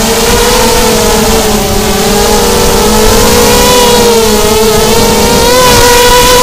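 Miniquad's brushless motors and propellers whining, several close pitches drifting up and down together with the throttle and rising a little near the end.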